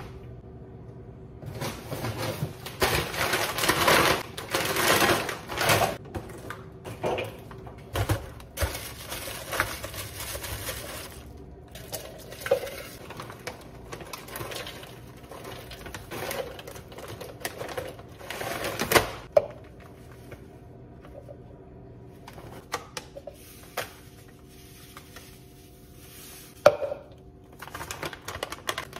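Plastic food bags and pouches rustling and crinkling as they are opened and handled, with scattered clicks and sharp knocks of things set on and dropped onto the counter and into a plastic blender cup. A steady low hum runs underneath.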